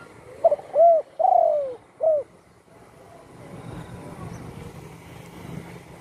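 Spotted dove calling: one phrase of four coos in the first two seconds, the third note the longest and falling in pitch.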